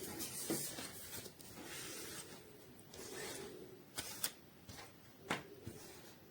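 Handling noise: soft rustling and rubbing, with three sharp clicks in the second half.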